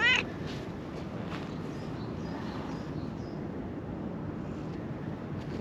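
A calico cat gives one short meow at the very start, rising and falling in pitch. After it there is only steady outdoor background noise, mostly low in pitch.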